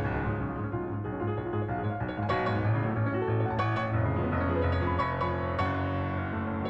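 Background music led by piano, playing a series of sustained notes and chords.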